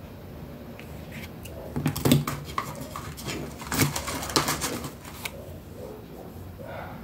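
A run of small clicks and taps from hands handling craft pieces and a small tool on a cutting mat, busiest from about two to five seconds in.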